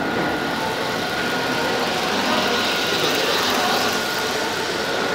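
H0-scale ROCO model trains running on the layout: a steady whir and rumble of the small locomotive motors and wheels on the track, with a faint steady high whine, over the hubbub of a busy hall.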